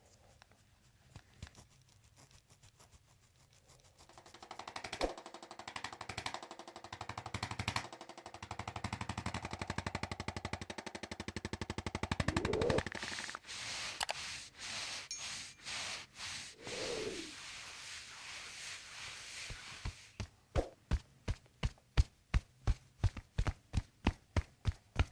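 Rapid percussive treatment of the trapezius muscles at the base of the skull: a fast, steady, machine-like stream of strokes with a tone that bends briefly twice, then slower, even taps about four a second near the end.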